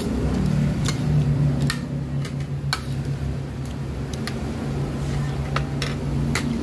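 Forks and spoons clinking against plates while eating: sharp, separate clicks at irregular intervals, roughly one a second, over a steady low hum.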